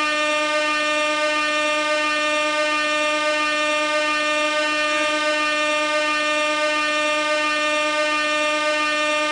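Gas air horn sounding one continuous, loud blast held at a steady pitch.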